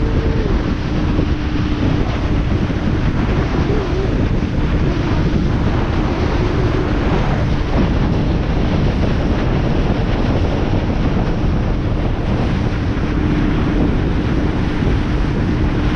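Small outboard speedboat running at speed across open water: a steady rush of wind on the microphone and hissing spray over a low engine drone.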